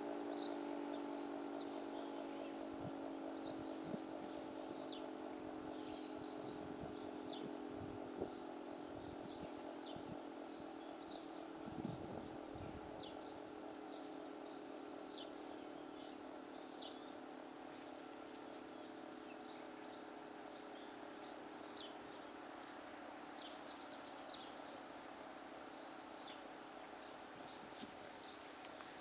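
Federal Signal 2T22 two-tone outdoor warning siren winding down at the end of a test, its low, steady chord slowly fading away. Birds chirp over it throughout.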